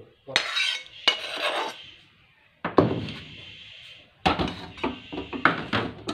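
A metal spoon scraping and clinking against a stainless steel bowl and pan as curry is served, in four or five separate bursts of clatter.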